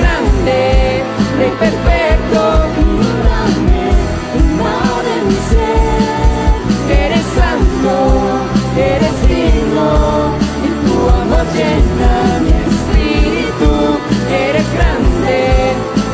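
Christian worship song played by a full band, with steady drum beats, sustained bass and keys, and a voice singing over it.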